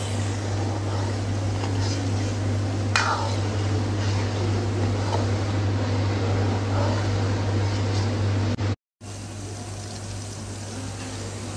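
Chopped chillies frying in plenty of oil in an aluminium wok, a steady sizzle with a metal ladle stirring now and then, over a steady low hum. The sound cuts out briefly a little after two-thirds in.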